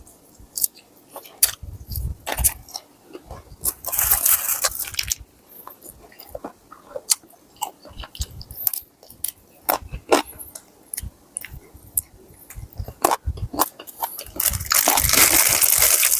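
Close-up eating of crisp food: sharp bites and chewing with many short crunches, and two longer spells of loud crunching, about four seconds in and again near the end.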